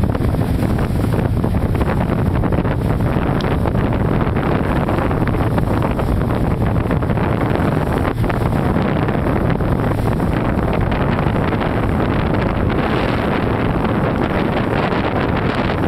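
Loud, steady wind rushing over the microphone aboard a moving motorboat, with the boat's engine and splashing water beneath it.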